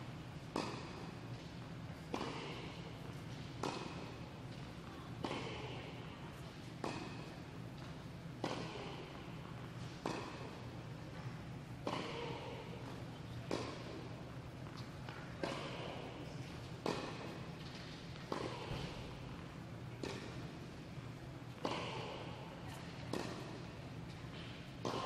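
Tennis balls struck by rackets in a steady back-and-forth rally, one hit about every second and a half, each echoing in the indoor tennis hall over a steady low hum.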